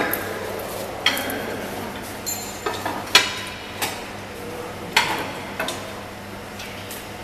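Scattered knocks and clinks of metal parts and tools, some ringing briefly, as a green PVC conveyor belt is worked onto the rollers and frame of a needle detector, the loudest a little after three seconds. A steady low hum runs underneath.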